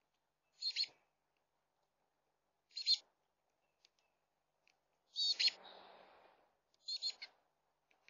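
Chickadee calling close to the microphone: four short, high calls about two seconds apart, with a brief rustle just after the third.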